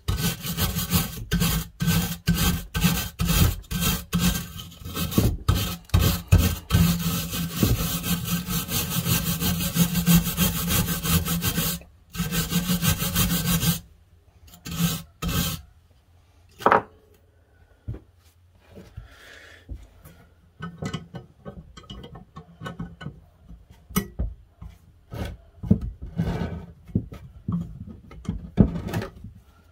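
Hand wire brush scrubbing rust off an iron andiron bar in quick back-and-forth strokes, stopping about halfway through. After that come occasional light clicks and scrapes of metal tools handling the piece.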